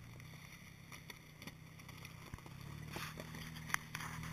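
Jeep Wrangler's engine idling, a low steady hum that grows a little louder about two and a half seconds in, with a sharp click near the end.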